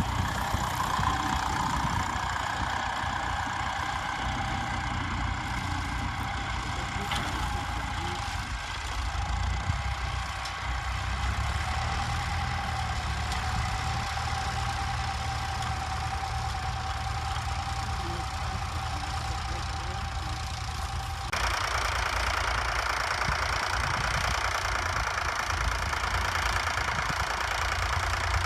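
Vintage tractor engine running steadily under a constant low thrum. About three quarters of the way in, the sound changes abruptly to a louder, rougher engine noise.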